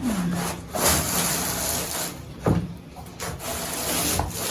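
Packaging rustling and scraping as a whiteboard is pulled out of its wrapping, in two long stretches with a short sharp knock between them.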